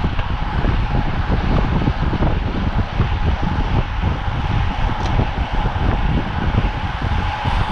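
Wind rushing and buffeting over the microphone of a camera on a road bicycle being ridden at speed, a steady loud rush with constant low rumbling gusts.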